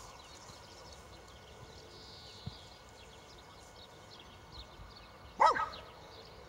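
A dog barks once, loud and sharp, about five and a half seconds in, over a faint steady background.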